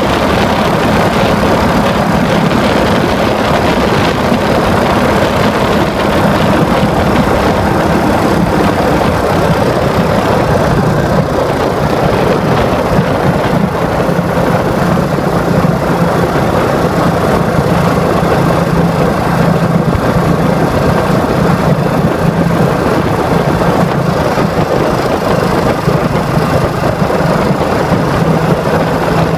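Royal Enfield Bullet 500 single-cylinder engine running steadily as the motorcycle is ridden, under a constant rush of noise. The engine note eases slightly lower about ten seconds in.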